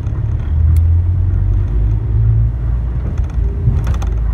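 Steady low rumble of a moving car, heard from inside the vehicle: road and engine noise, with a few faint clicks near the end.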